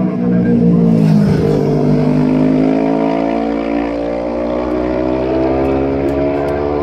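Superbike road-racing motorcycle going by at speed about a second in, then accelerating hard away, its engine note climbing steadily in pitch.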